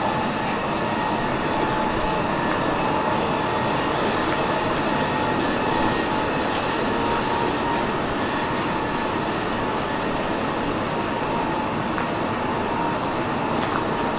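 Steady running noise of a moving vehicle, even in level throughout, with a faint steady whine above it.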